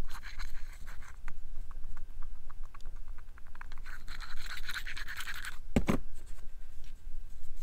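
American-made SKF clutch throwout bearing, the one with play in it, spun by hand: a gritty rasping whir with rapid clicking, loudest just past halfway. This is the noise of a bearing with play, the "loud one" of the two. About three-quarters through there is a single sharp knock as it is set down on the bench.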